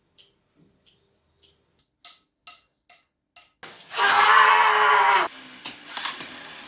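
Hand-made foley sound effects: about eight sharp clicks or taps, then, a little past halfway, one loud held sound with a steady pitch lasting about a second and a half, ending abruptly.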